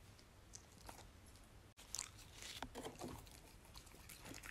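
A Samoyed dog chewing a crunchy fry. After a quieter start, a quick run of crisp crunches and mouth clicks begins about two seconds in.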